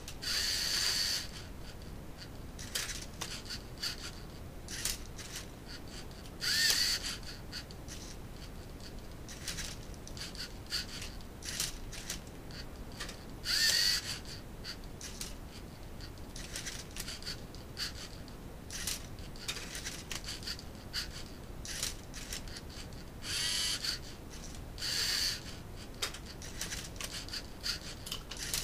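A LEGO Mindstorms NXT Rubik's cube solving robot at work: its servo motors whine in short bursts of about half a second to a second, several times, some rising in pitch as they spin up, as it turns and tips the cube. Short plastic clicks and rattles from the cube and the LEGO mechanism come between the bursts.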